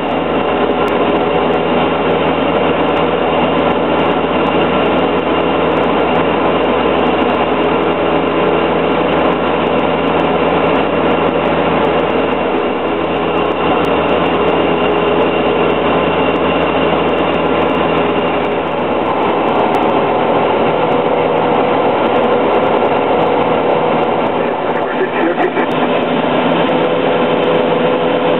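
Robin DR400 light aircraft's piston engine and propeller droning steadily as heard inside the cabin while the plane climbs. The engine note shifts slightly about two-thirds of the way in.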